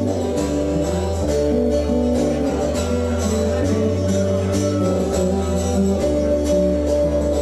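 Live band music: an acoustic guitar played over a steady bass line, with a regular percussion beat on top.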